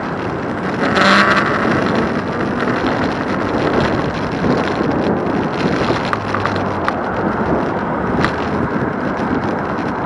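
Wind rushing over the microphone and road noise while riding an e-bike, with a louder swell about a second in.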